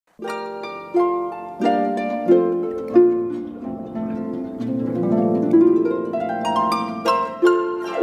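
Plucked-string music: a slow melody of picked notes, each struck sharply and ringing out as it fades, over lower held notes.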